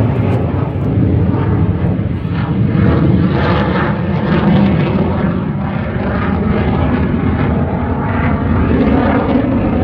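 Jet aircraft flying overhead: a loud, steady rush of jet engine noise.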